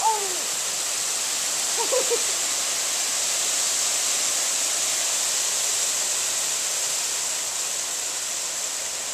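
Small hail and rain coming down steadily on a patio and lawn: a dense, even hiss that eases slightly near the end.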